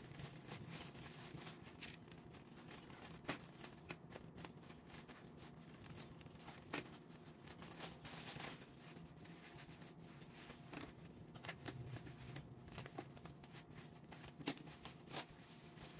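Faint rustling and crinkling of a plastic courier mailer and bubble wrap as a parcel is handled and cut open, with scattered small clicks and taps.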